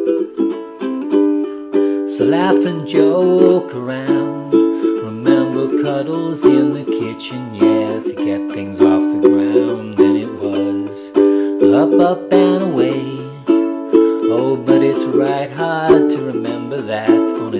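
Ukulele strummed in a steady rhythm, moving through E minor, B minor and D chords. Underneath, from about two seconds in, a lower bass part moves in steps.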